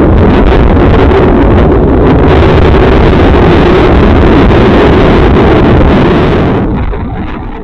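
Loud, steady, crackly rumbling roar picked up by a home security camera's microphone, heavy in the low end. It begins to fade about six and a half seconds in. It is presented as one of the unexplained explosion-like sounds heard in the sky.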